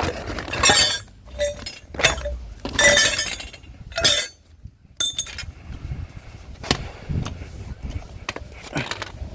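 Scrap copper pipes and brass fittings clinking and clanking against each other as they are picked up and loaded. There are several bursts of metal clatter with a brief ringing note in the first four seconds, a short pause, then scattered lighter knocks.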